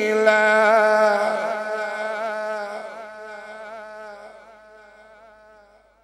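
A man's voice in melodic Quran recitation (tilawat), holding one long, ornamented, wavering note that fades out gradually over about five seconds.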